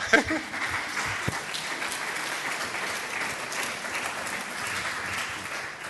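Audience applauding: a dense, steady patter of many hands clapping that tapers off slightly near the end.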